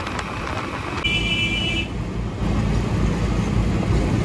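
Road rumble and wind noise from riding a motorcycle on a highway, with a vehicle horn giving one short honk about a second in; the rumble gets louder about halfway through.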